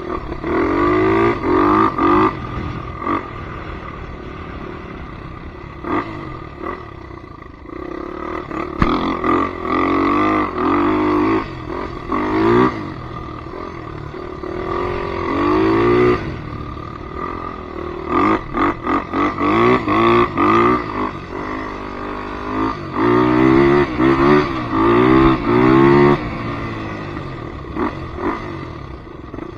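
Polaris Predator 500 ATV's single-cylinder four-stroke engine being revved in repeated short bursts, its pitch rising and falling with each blip of the throttle, with steadier, quieter running between the bursts.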